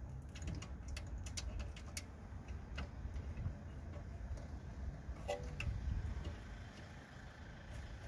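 Scattered light metallic clicks and taps as the rear brake caliper is handled and its top 13mm bolt is threaded in by hand, over a low steady background rumble.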